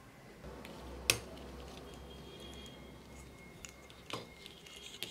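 Handling sounds of small hard parts: one sharp click about a second in, then a few lighter clicks and taps as the soldering iron's barrel, handle and cable are fitted together.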